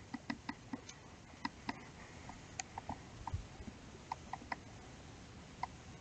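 Handheld whiteboard eraser wiped across a whiteboard, giving a scattered run of short, faint squeaks and ticks at irregular intervals.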